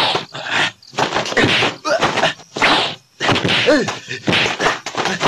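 Film fight soundtrack: a quick series of dubbed punch and blow sound effects, about two a second, with short shouts or grunts from the fighters between them.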